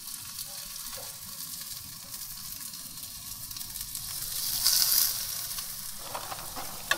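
Marinated tilapia fillets sizzling on aluminium foil over a preheated grill: a steady hiss that swells briefly about four and a half seconds in, as another oily fillet is laid down with tongs.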